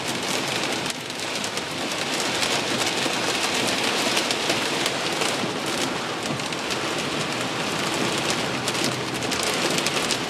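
Heavy downpour drumming steadily on the car's roof and windshield, a dense hiss made of countless fine drop impacts, heard from inside the car.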